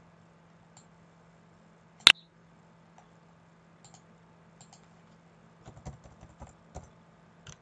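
Computer keyboard keys tapped in a quick run of light clicks in the last couple of seconds, backspacing text out of a field, after a single sharp click about two seconds in. A faint steady hum runs underneath.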